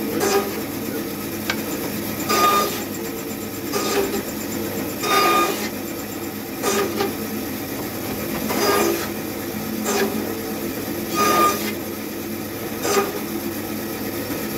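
Woodworking machine running steadily, with a short cut into a wooden strip about every second and a half as pieces are fed through one after another to cut the joints for hive frames.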